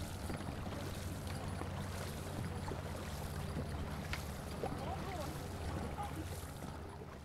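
Dragon boat under paddle: water rushing past the hull and paddle blades splashing in at irregular intervals, over a steady low rumble of wind on the microphone. Faint voices come in about five seconds in, and the sound fades out near the end.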